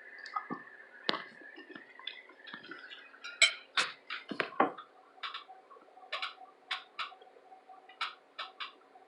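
Close-up eating sounds: wet chewing with sharp lip-smacks and mouth clicks, irregular, thickest around the middle.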